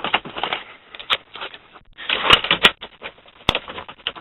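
A 2002 Holden VU's 5.7-litre LS1 V8 running with a rapid, irregular knocking from the top end. The owner suspects the right bank's rockers or something similar has failed.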